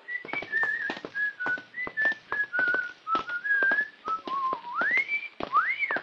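Someone whistling a tune in short notes, ending in a two-part wolf whistle: a rising glide, then a glide that rises and falls. Sharp taps sound throughout.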